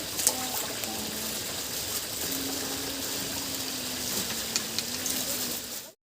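Steady rush of running water, with a faint held hum in the middle; the sound cuts off abruptly near the end.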